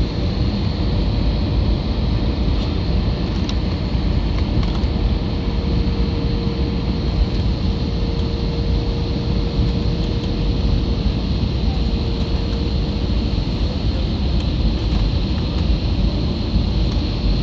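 Steady roar of an airliner heard from inside the passenger cabin during landing: engine and airflow noise, heaviest in the low end, with a thin steady high whine over it.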